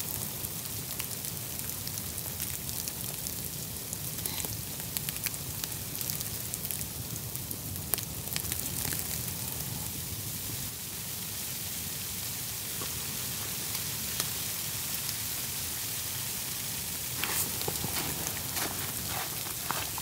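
Sleety snow pattering on nylon shelter fabric: a steady hiss with scattered light ticks, which grow thicker near the end.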